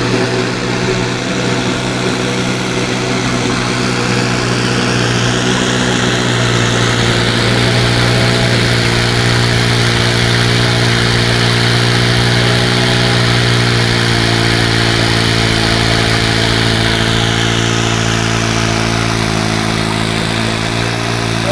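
Clamp-mounted pneumatic drum stirrer running steadily: a low, even mechanical hum with a hiss of air over it.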